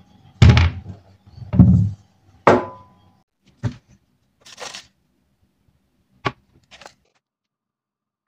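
Potatoes and an onion set down one after another on a bamboo cutting board: three heavy thunks in the first few seconds, then a few lighter knocks and a brief rustle.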